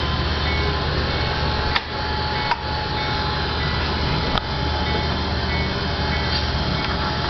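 HO scale model passenger train running along the layout: a steady rolling hum, broken by three sharp clicks.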